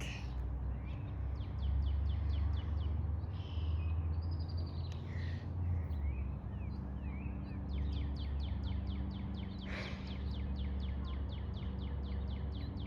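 A bird singing a fast trill of short down-slurred notes, about five a second, heard twice, with other chirps in between, over a steady low rumble. No siren is sounding yet.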